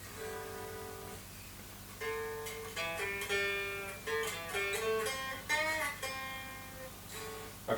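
Replica Gibson Les Paul electric guitar played clean through a Vox amp at low volume: one note rings for about a second, then from about two seconds in a run of picked single notes moves up and down in pitch.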